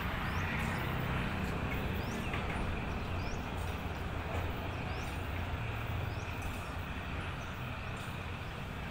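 Train rumbling steadily, with faint high bird chirps about once a second.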